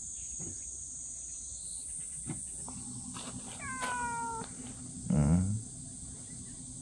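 Cat meowing with a drawn-out, falling pitch around the middle, then a shorter, louder low call about five seconds in. A steady high insect buzz runs behind it.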